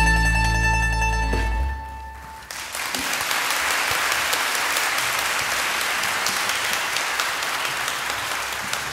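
A band's closing chord holds and then dies away, and about two and a half seconds in the audience breaks into steady applause.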